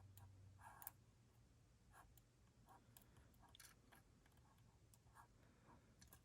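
Near silence with a few faint, scattered clicks and ticks, a small cluster about a second in, from small metal parts being handled while the chainsaw's crankshaft is turned slowly by hand.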